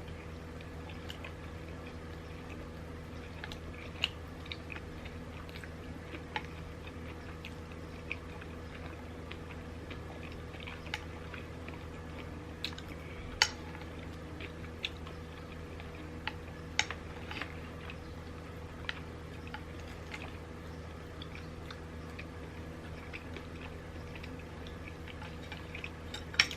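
Close-miked chewing of a sushi roll: scattered soft wet mouth clicks and smacks, with a few sharper snaps, over a steady low hum.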